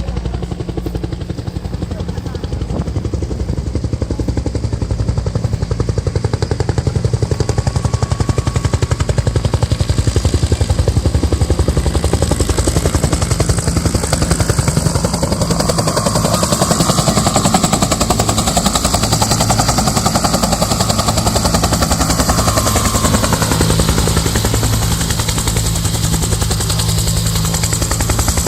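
Firefighting helicopter overhead, its rotor blades chopping in a rapid, steady beat over the turbine's drone. It grows louder a few seconds in, then holds.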